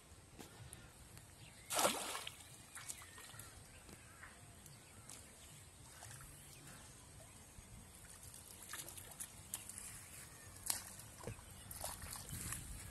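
Quiet pondside ambience with faint bird calls. A brief noisy rush about two seconds in is the loudest sound, and light clicks and rustles come more often near the end as a fish is pulled from the water.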